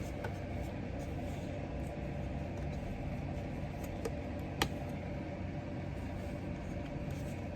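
Steady low room hum with one sharp click about four and a half seconds in.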